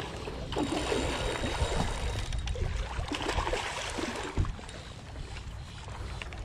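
A hooked black drum thrashing and splashing at the water's surface, the splashing easing off after about four seconds, with one sharp knock at about that point.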